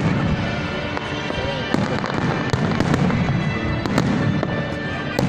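Fireworks display: aerial shells bursting overhead in a quick, irregular string of bangs over a continuous low rumble.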